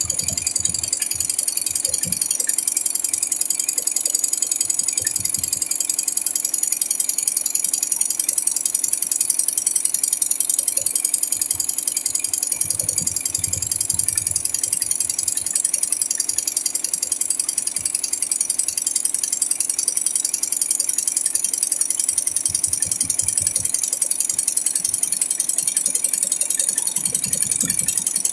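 Single-head, eight-needle computerised embroidery machine stitching at speed: a fast, even mechanical clatter of needle strokes, with occasional low thuds.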